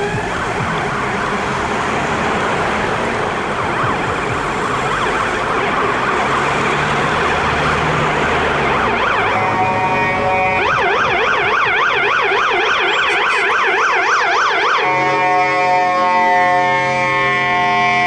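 Ambulance siren on an emergency run, loud. For about the first half a dense, blaring horn sound; then it switches between a fast rising-and-falling warble and a steady alternating two-tone.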